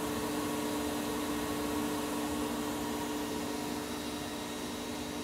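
CNC lathe running a cut on a stainless steel part under flood coolant, spindle at 1500 rpm: a steady machine hum with a few held tones over an even hiss.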